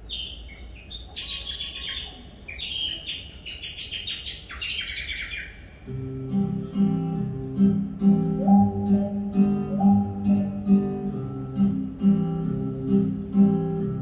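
Birdsong imitated live: rapid high chirps and trills for about the first six seconds. Then an acoustic guitar comes in with a steady, rhythmic picked accompaniment, and the chirping starts again near the end.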